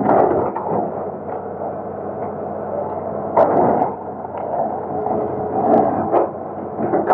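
Excavator engine running steadily while the machine breaks up a bridge, with several sharp knocks and crunches of the bucket striking and dragging through the structure.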